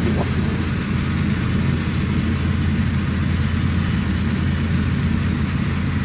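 Evektor SportStar's Rotax 912 engine and propeller droning steadily in cruising flight, heard inside the cockpit with a steady hiss of air noise over the low engine note.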